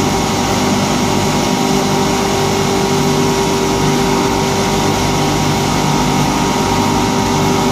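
Eight-head paper core polishing machine running steadily with its dust-extraction blowers: an even, loud machine whir and hiss with a constant hum.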